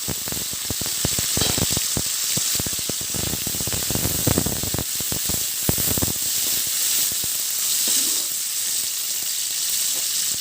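Onions and tomatoes sizzling as they fry in hot oil in a kadai, with a spatula knocking and scraping against the pan for roughly the first six seconds as they are stirred, then steady sizzling alone.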